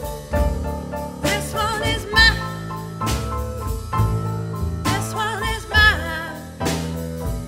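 Live neo-soul band: grand piano chords and upright double bass over steady drum strokes, with a woman singing long held notes with vibrato in two phrases.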